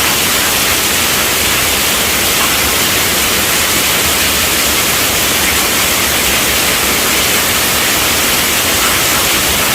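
Steady rainfall heard as a dense, even hiss, with no single drops or thunder standing out.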